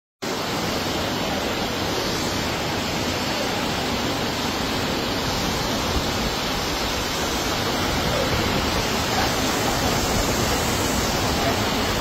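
Muddy flash-flood water rushing down a street as a torrent during heavy rain: a steady, even rush of water that grows slightly louder in the second half.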